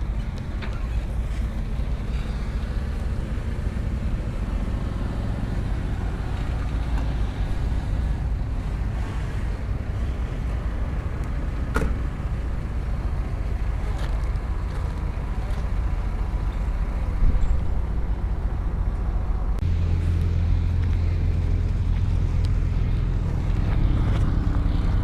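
Heavy diesel earthmoving machinery running steadily with a low engine rumble and a sharp click about halfway through. The low engine note grows louder about 20 seconds in, as if the engine comes under load.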